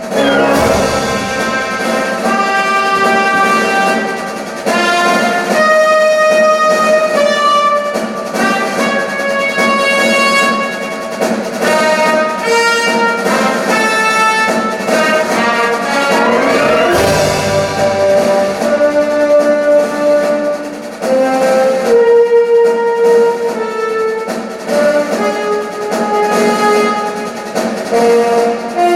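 Orchestral music with prominent brass played back through a high-end hi-fi system: held notes and phrases, with a rising glide about halfway through.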